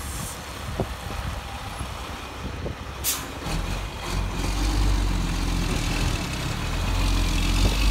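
A heavy truck's diesel engine running close by. Its low rumble comes in strongly about three and a half seconds in and holds steady. A short sharp hiss of air comes just before it, over a steady hiss of wind and rain noise.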